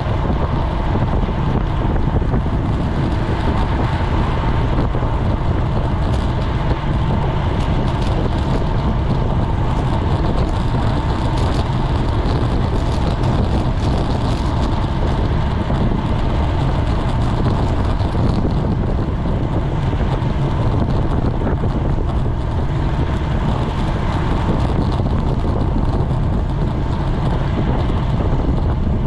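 Steady wind noise buffeting a GoPro microphone on a racing bicycle moving at speed.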